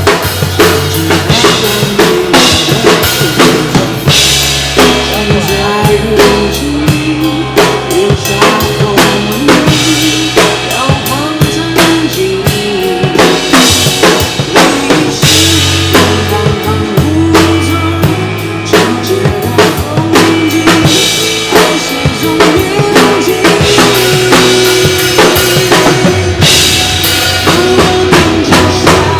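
Pop song music with a steady drum-kit beat of bass drum and snare, a bass line and a melody.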